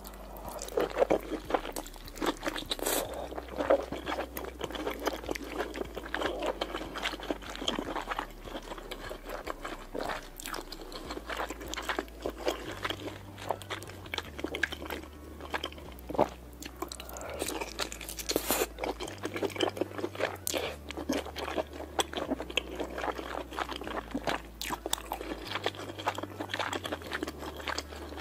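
Close-miked eating of king crab legs coated in thick cream sauce: continuous chewing and biting, a dense run of small mouth clicks and smacks.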